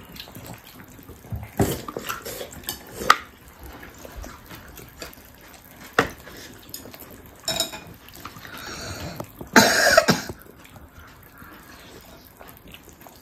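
Dishes and utensils clinking at a meal table: a few scattered sharp clicks and knocks of chopsticks, bowls and a plastic plate, with a louder short sound about ten seconds in.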